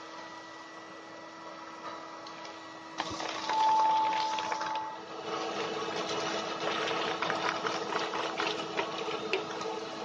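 Old small vacuum cleaner (a 'Bumblebee-4') running steadily, drawing air through a homemade plastic cyclone dust separator. About three seconds in the sound changes sharply. A brief high whistle follows, then a busier rushing with many small clicks.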